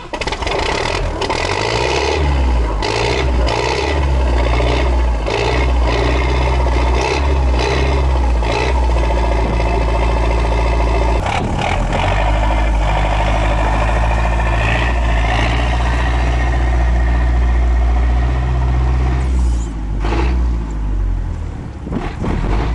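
Tracked all-terrain vehicle's engine running under load, with its tracks clanking repeatedly as it pulls away over muddy ground. The sound eases for a moment near the end.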